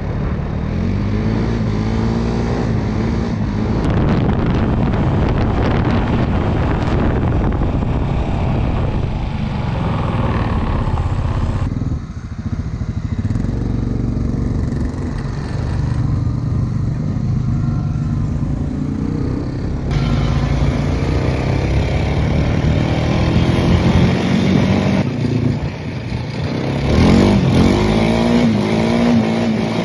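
Off-road vehicle engine running under load through snow, revving up and down, its pitch rising and falling. The sound changes abruptly a few times.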